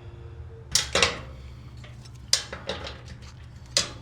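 Sharp metallic clanks and rattles as metal parts are handled: a pair about a second in, a cluster past two seconds and one more near the end, over a steady low hum.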